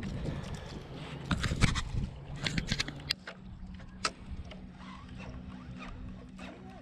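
Sharp clicks and knocks from handling a spinning rod and reel while casting a lure, clustered in the first three seconds with a single knock about four seconds in, over a steady low hum.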